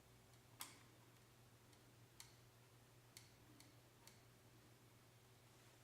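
Faint, irregular clicks, about five of them, as a screwdriver turns the red gear wheel of the Nikon D40X's shutter drive notch by notch to free a jammed shutter mechanism.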